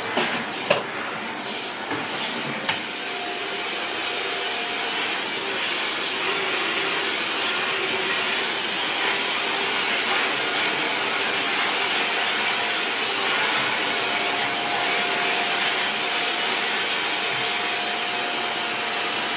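Shark Powered Lift Away NV681UKT bagless vacuum running steadily in lift-away mode, sucking through the extended dusting brush as it is worked over a desk. A thin whistle comes and goes over the motor noise, and there are a few short knocks in the first few seconds.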